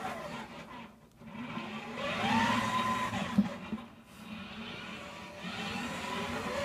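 Two ServoCity HD planetary gear motors on a tank-drive robot carrying a seated rider, whining as it drives. The whine rises in pitch as the motors speed up about two seconds in, drops away briefly around one and four seconds in, then runs steadier and quieter.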